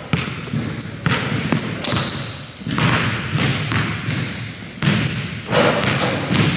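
Basketball dribbled on a hardwood gym floor, with a few short high-pitched squeaks of sneakers on the court, about a second in, around two seconds in and again near the end.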